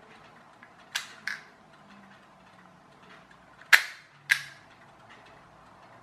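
Mattel Disney/Pixar Spare O Mint toy car launcher's plastic double-release ratchet snapping: two sharp clicks about a second in, then two louder ones a little past the middle, the first of these the loudest, as its lever is worked through the two release stages.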